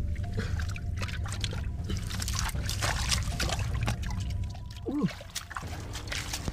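Muddy water trickling and sloshing as hands dig and grope in a flooded hole in the mud, with many small wet clicks. A short falling squeak sounds about five seconds in.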